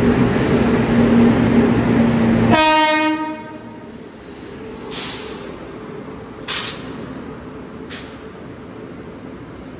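Passenger train at a station platform, its loud rumble running for the first two and a half seconds. Then a short horn blast sounds as the rumble drops away, followed by quieter platform noise with a few brief high-pitched squeals.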